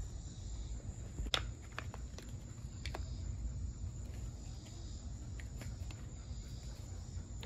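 Faint, scattered clicks and light taps from handling the opened plastic housing of a cordless impact driver, over a low steady hum.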